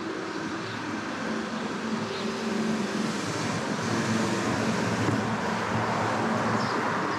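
Road traffic: a passing car's engine and tyre noise swells over a few seconds and stays up, over a steady low hum.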